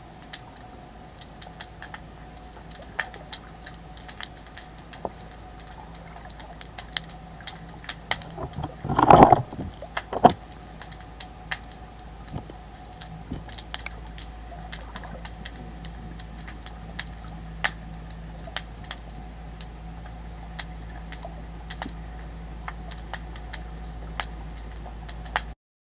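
Underwater sound picked up by a GoPro in its waterproof housing on the seabed: a steady low hum with irregular sharp clicks and crackles. A louder half-second burst of noise comes about nine seconds in, with a shorter one about a second later.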